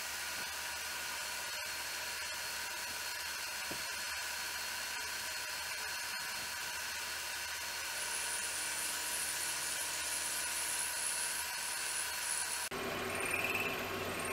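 Milling machine running, its end mill cutting into an aluminum vise jaw. A steady machine sound, with a high whine joining about eight seconds in; the sound changes abruptly near the end.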